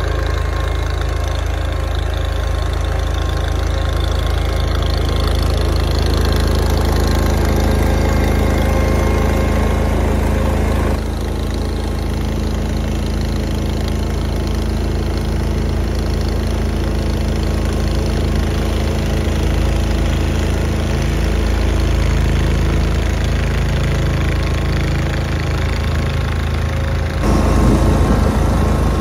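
Garden tractor engines running steadily, with an abrupt change in the sound about eleven seconds in and again near the end.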